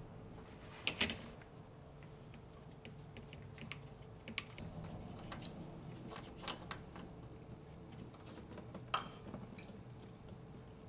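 Scattered light clicks and taps of a gloved hand handling parts under a car during an oil change, with a new oil filter being brought in. The loudest is a quick double click about a second in, with another sharp tap near nine seconds, over a faint steady hum.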